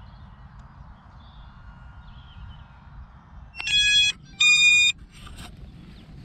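Two electronic beeps from the FPV racing drone's gear just before its motors start, each about half a second long and made of several high tones at once, over a faint outdoor background.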